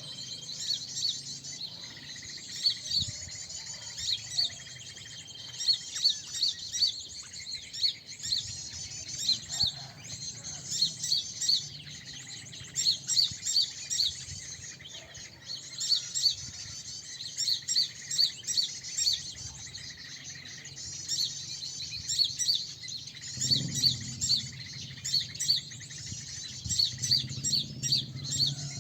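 A crowd of small birds chirping in a dense, continuous chorus of short, high, rapid calls. A low steady hum grows louder underneath near the end.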